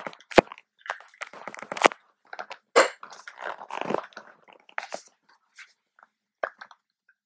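Irregular knocks, clicks and rustling from people shifting in leather armchairs, with a ceramic mug set down on a table. The sounds are densest in the first few seconds and thin out after about five seconds.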